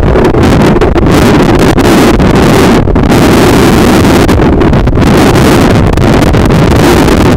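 Loud, steady, muffled rushing of water recorded underwater through a camera housing as the snorkeler swims, with a few brief dips about three and five seconds in.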